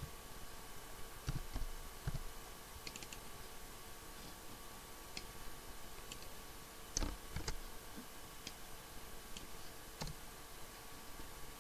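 Computer keyboard keystrokes and mouse clicks, a few scattered taps and small clusters with pauses between, over a faint steady hum.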